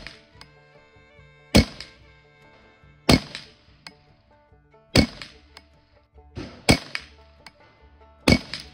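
Five shots from a semi-automatic .22 Long Rifle rifle firing Winchester Super X rounds, one about every one and a half to two seconds, over background music.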